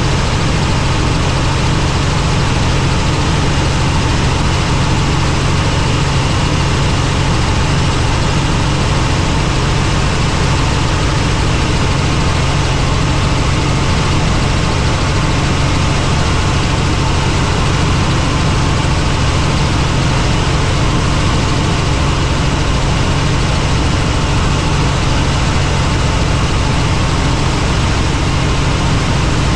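Helicopter in flight: a loud, steady drone of rotor and engine, heaviest at the low end, holding level without change.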